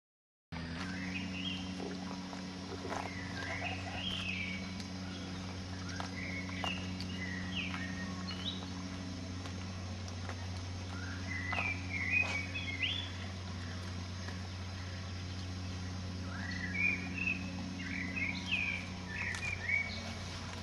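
Songbird singing outdoors in short warbling phrases that come in bursts every few seconds, over a steady low hum, with a few faint clicks.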